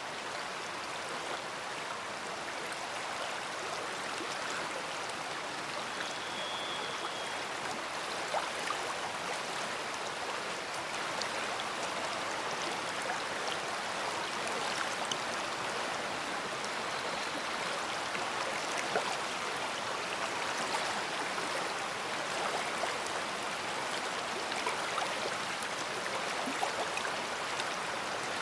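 A big river flowing: a steady rush of water, flecked with small splashing ticks.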